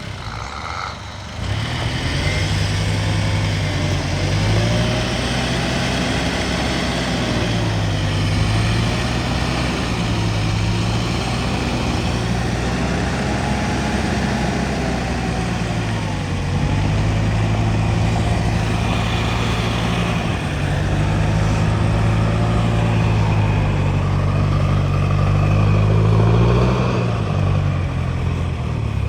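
Mitsubishi L200 pickup engine revving up and down repeatedly while the truck works through deep snow.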